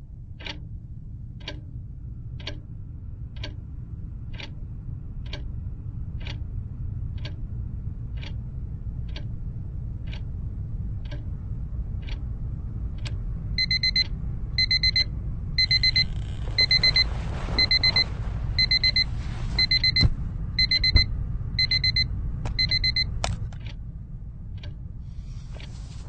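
Alarm clock ticking about once a second, then its electronic alarm going off: quick bursts of high beeps repeating a little under a second apart. The beeping stops with a click about nine seconds later.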